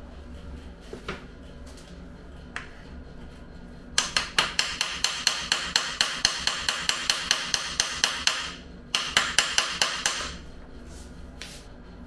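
Rapid hammer taps, about five a second, each with a short ring. One run of about four and a half seconds, a brief pause, then a shorter second run. They drive the spindle of a Shimano Ultegra crankset out of the bike's bottom bracket during crank removal.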